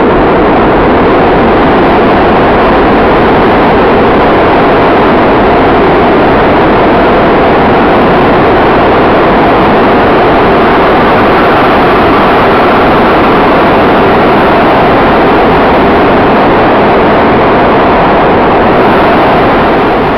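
Loud, steady roaring wash of noise, with no clear pitch, that fades out near the end.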